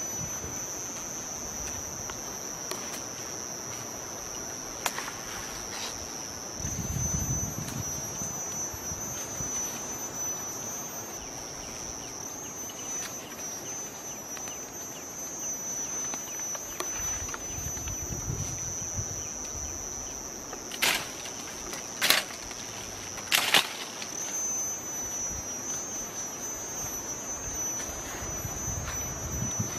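Steady high-pitched insect chorus, with a few sharp snaps or cracks around two-thirds of the way through.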